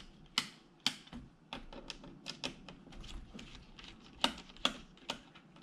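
Irregular light clicks and taps of a small Phillips screwdriver working the screws out of a Lenovo T530 laptop's plastic case.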